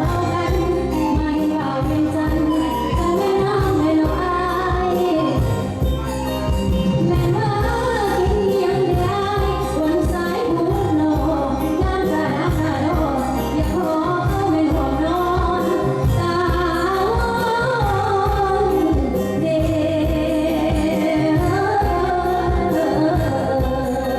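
Lao khap ngum singing in ramwong dance style with instrumental accompaniment: a wavering, ornamented vocal line over steady held drone notes and a regular low beat.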